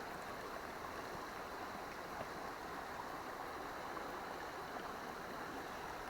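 Small river flowing: a steady rush of running water.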